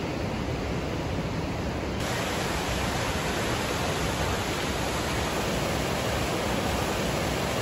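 Rushing white water of a rocky mountain creek, a steady hiss of rapids. It sounds duller and a little quieter for the first two seconds, then fuller.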